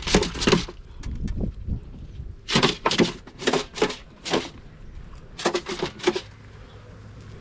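Freshly killed chickens thrashing and flapping in nerve spasms, heard as irregular short bursts of flapping and scuffling. The bursts come in clusters near the start, in the middle and again about three-quarters through.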